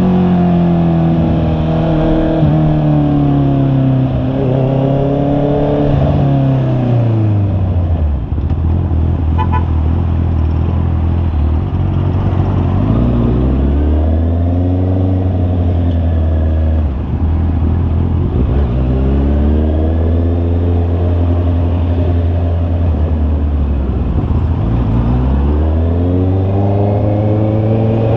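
Honda CB650R's inline-four engine on the move, its pitch repeatedly rising as it revs up and falling as it backs off, with long stretches of steady running in between.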